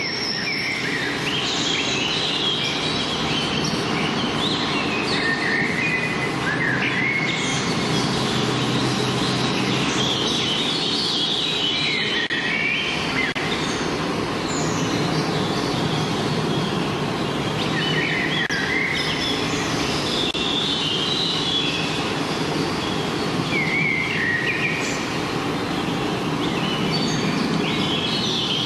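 Songbirds singing in short phrases a few seconds apart, over a steady rushing background noise.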